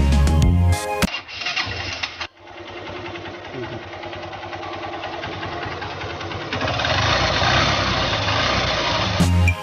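After about a second of electronic music, a Honda Shine motorcycle's single-cylinder engine starts and runs steadily, getting louder about seven seconds in.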